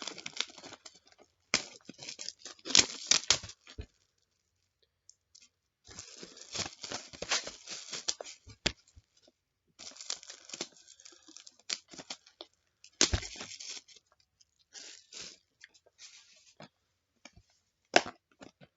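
Packaging of a box of trading cards being torn open and crinkled, in irregular bursts of crackling separated by brief pauses, with a few sharp clicks.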